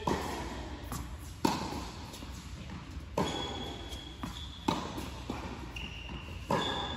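A tennis rally on an indoor hard court: sharp pops of balls struck by rackets and bouncing off the court, the loudest hits coming about every second and a half, each with an echo from the large hall.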